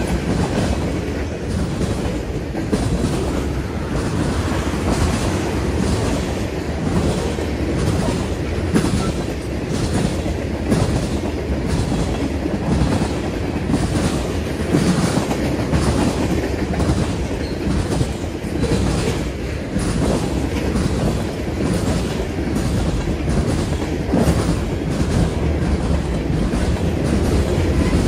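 Freight train cars rolling past: a steady rumble of steel wheels on rail with a regular clickety-clack as the wheels cross rail joints.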